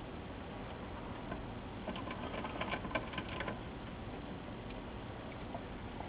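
A hand screwdriver driving small screws into the metal chassis of a flat-panel monitor: a quick run of light metallic clicks and ticks lasting about a second and a half, starting about two seconds in.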